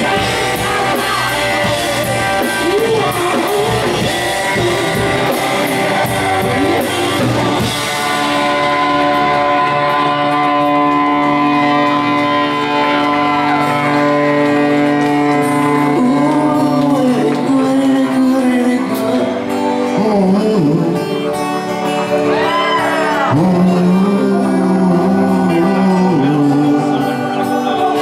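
Live rock band playing: acoustic guitar, electric guitar and drums, with a man singing. About eight seconds in the cymbals and drums drop out, leaving held guitar chords under the voice.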